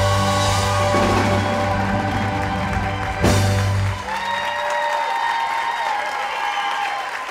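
Live rock band holding a final chord under drums, with a sharp crash about three seconds in, then cutting off about four seconds in as the audience applauds.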